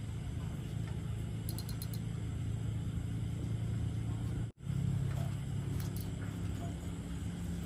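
A low, steady engine drone, most likely a boat's motor running on the river. It breaks off for an instant about four and a half seconds in, then carries on slightly louder.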